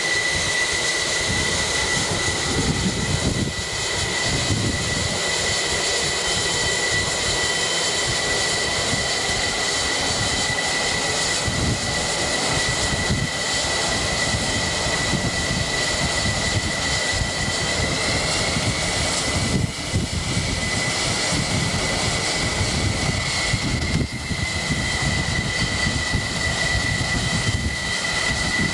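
Jet aircraft engines running on a carrier flight deck: a continuous loud roar with a steady high-pitched whine. The whine rises slightly in pitch about two-thirds of the way in, then settles back.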